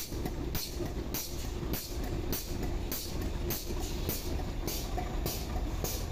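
Machinery running with a steady low rumble and a short hissing pulse that repeats evenly about every 0.6 seconds.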